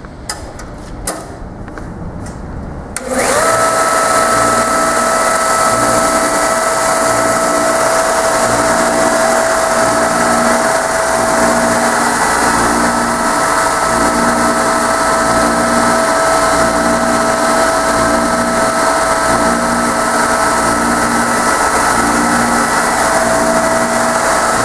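Kalamazoo 4" x 36" belt sander switched on about three seconds in, after a few clicks, then running steadily with no workpiece: a loud, even motor-and-belt whine with a faint regular pulsing underneath.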